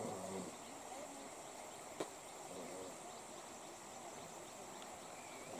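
Faint field ambience: a steady high-pitched insect drone with distant voices talking on and off. A single sharp click comes about two seconds in.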